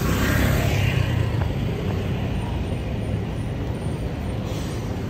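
Steady road traffic noise: a low rumble of vehicles running past on a city street.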